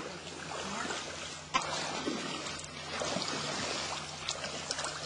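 Shallow stream water running over rocks and splashing around people wading in it, with one sharp knock about a second and a half in.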